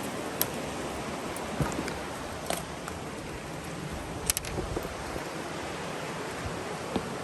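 Mountain stream rushing steadily, with a few sharp clicks from handling scattered through.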